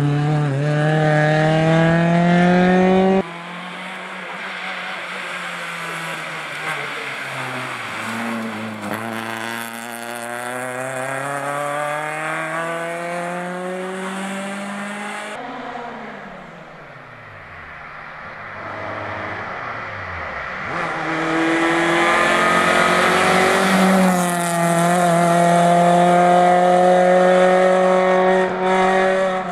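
Suzuki Swift rally car engine at full throttle, revving up and falling back through gear changes, in several cut-together shots. A loud close engine note gives way after a few seconds to a quieter stretch of rising and falling revs. A little past the middle the car passes with its pitch dropping away, then loud high revs return near the end.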